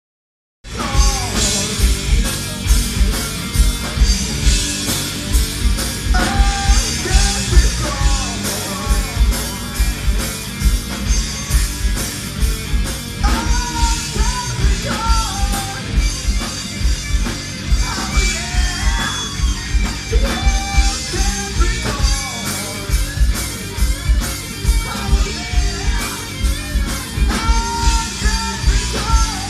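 A rock band playing live: distorted electric guitars, bass and heavy pounding drums with cymbals, and a singer yelling the vocal line. It kicks in abruptly about half a second in.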